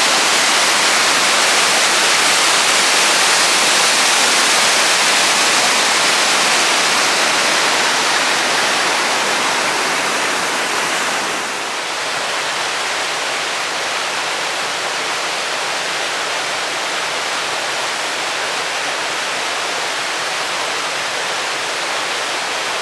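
Waterfall swollen with recent rain, a steady, dense rush of falling water. About halfway through it gives way to a slightly quieter, steady rushing of a rocky stream running over small cascades.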